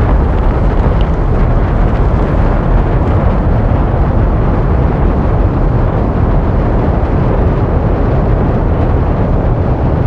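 Designed sci-fi sound effect of a giant alien mothership's engines: a loud, steady deep rumble, its hiss on top thinning out over the first few seconds.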